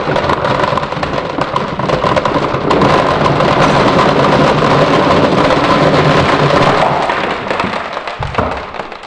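Many glass marbles rattling and clicking together down a marble run in a dense, continuous clatter, which thins out and gets quieter near the end.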